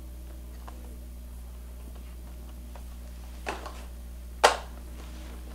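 Steady low hum with two sharp clicks about a second apart near the end, the second much louder.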